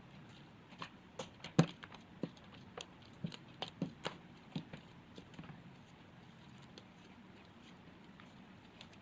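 Homemade glue-and-shaving-cream slime being kneaded and squeezed by hand, giving a quick run of sticky clicks and small pops that dies away after about five seconds.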